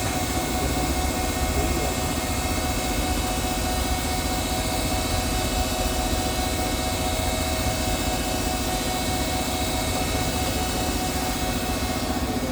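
Nakamura-Tome TMC-15 CNC lathe running: a steady mechanical hum with several steady tones, and a low tone growing louder near the end.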